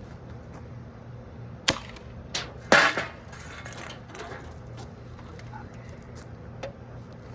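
Chopping strikes of a homemade axe whose head is cut from a metal-cutting saw blade: a sharp hit about one and a half seconds in, then a louder hit about a second later with a short tail, and a faint knock near the end.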